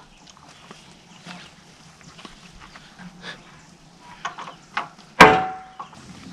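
Metal work on a boat trailer wheel during a tire change: a few light knocks, then one loud metallic clank about five seconds in, ringing briefly.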